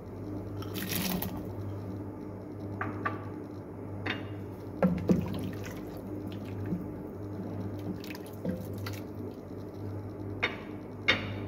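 Wooden spoon stirring a pot of liquid soup, with wet sloshing and a few short knocks of the spoon against the pot, over a steady low hum.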